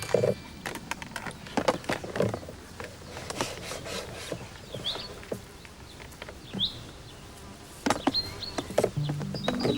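Irregular light clicks and taps, with two short rising chirps in the middle; music begins near the end.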